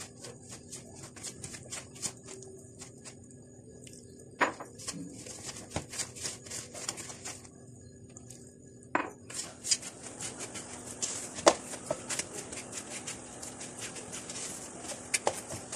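Hand mixing flour, egg and butter in a plastic bowl, then kneading it into soft dough: soft rubbing and squishing with scattered light knocks against the bowl and a few sharper ones.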